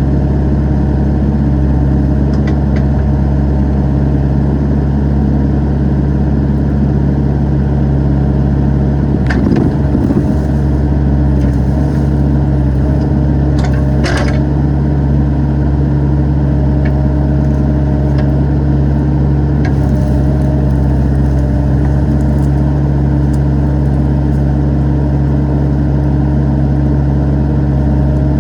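Excavator engine running steadily under load, with a few sharp knocks or cracks about nine to ten and fourteen seconds in.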